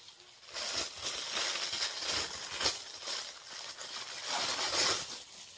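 Tissue paper rustling and crinkling as it is handled and unwrapped by hand, with a few sharp crackles; the sound comes and goes unevenly.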